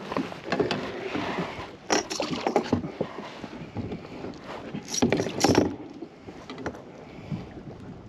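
A hooked freshwater drum splashing at the surface beside a plastic kayak, with irregular knocks against the hull. The splashing comes in louder bursts about two seconds in and again about five seconds in.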